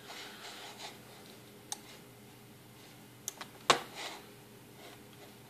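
Three sharp clicks on a computer: a light one a little under two seconds in, then two close together about three and a half seconds in, the second the loudest.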